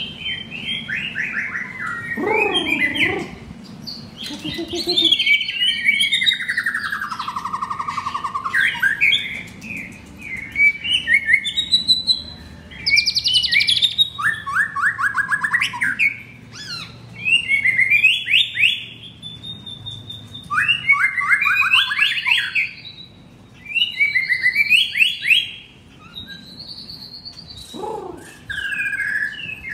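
White-rumped shama singing in phrases a few seconds long with short pauses between, made of fast rattling trills and clear whistles, one long whistle sliding downward. Its song is filled with imitated canary phrases.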